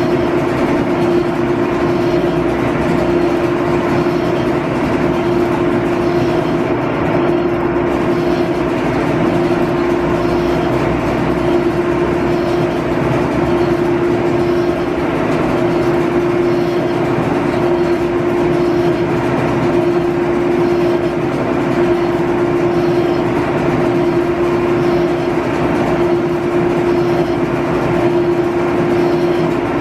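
32-inch G&E metal shaper running, its ram stroking a shear tool across a steam-engine crosshead to surface it: a loud, steady machine hum with a constant tone.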